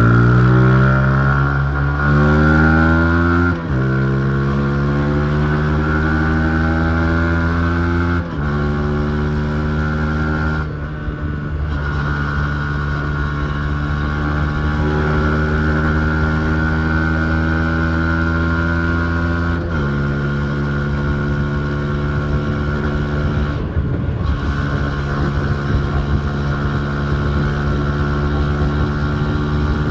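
Yamaha MT-15's single-cylinder 155 cc engine pulling hard under acceleration. The revs climb and fall sharply three times as it is shifted up through the gears, then it holds a steady cruise.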